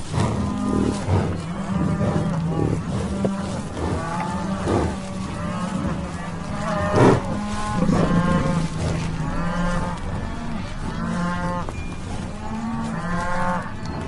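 Cattle mooing: many drawn-out and shorter moos overlapping one after another, with a louder call about seven seconds in.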